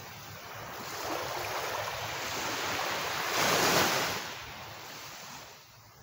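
Small waves breaking and washing up a sandy beach. The wash swells to its loudest about three and a half seconds in, then draws back and fades.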